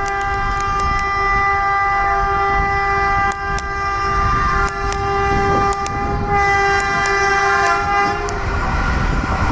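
WCAM-1 electric locomotive's horn sounding one long continuous blast as the train approaches, cutting off about eight seconds in. The rumble of the oncoming train then grows louder.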